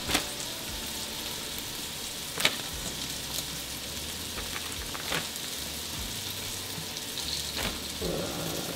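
Fish fillets being dropped one at a time into a plastic zip-top bag of seasoning, giving three short rustling knocks, over a steady hiss from the stovetop where oil is heating and pots are cooking.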